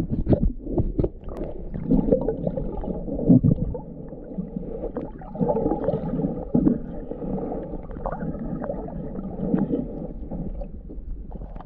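Choppy small wind waves sloshing and slapping, with an uneven low rumble and short knocks coming in irregular surges.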